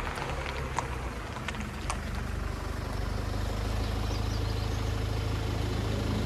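Vehicle engine running steadily, a low even hum with road or rain noise over it, and a few faint clicks in the first two seconds.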